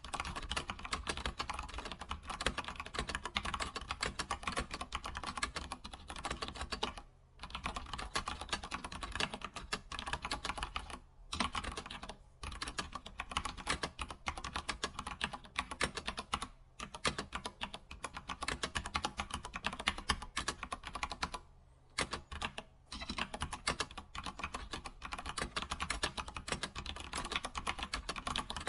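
Computer keyboard typing: a fast, continuous stream of key clicks with a few short pauses.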